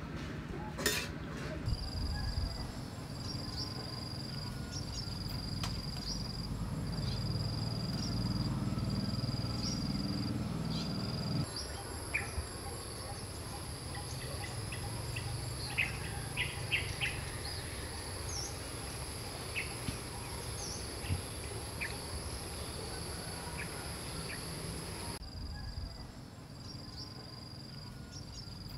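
Insects chirping, one high chirp repeating about once a second, with a steady higher insect whine in the middle stretch. A low rumble runs underneath for the first dozen seconds, and a few light clinks of a metal ladle against an aluminium pot come in the middle as vegetables are stirred.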